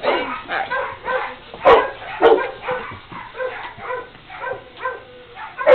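A dog barking over and over, about two short barks a second, the loudest near the two-second mark.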